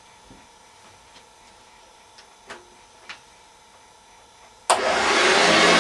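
A few faint clicks and knocks, then near the end a Hoover Junior 1346A upright vacuum cleaner switches on suddenly and runs loudly and steadily.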